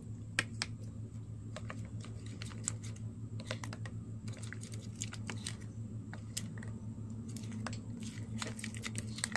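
Plastic spoon stirring white glue slime in a plastic cup as borax water is mixed in and the slime starts to form, giving many irregular light clicks over a low steady hum.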